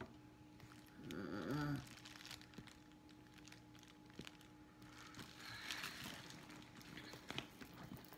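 Clear plastic wrapping on a leather handbag's handles crinkling and rustling as the bag is handled, mostly in the second half. A short vocal sound about a second in is the loudest moment.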